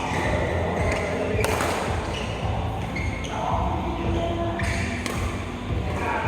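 Cue-sports hall ambience: a few sharp clicks of balls being struck, about one and a half seconds in and again near five seconds, over a low hum and background voices.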